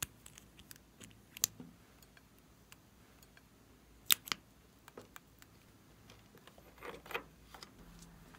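Small plastic lip-tint bottle and its cap handled close to the microphone: scattered sharp clicks and taps, with a loud pair of clicks about four seconds in as the cap is worked open and a short rustle near seven seconds.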